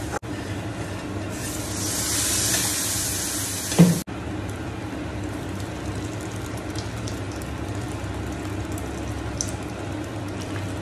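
A spoon stirring curry masala frying in a metal pan, with a loud sizzle for about two and a half seconds that ends in a knock of the spoon on the pan. Then cooked dal is poured into the pan from a pressure cooker and stirred, over a steady low hum.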